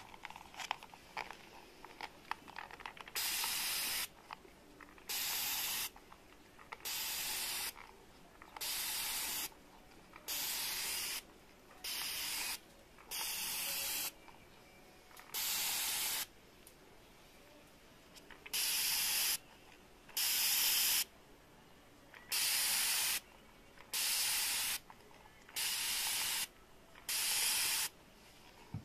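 Hand-held mist spray bottle spraying fine mist in about fourteen separate bursts of roughly a second each, with short pauses between. A few light clicks come before the first spray.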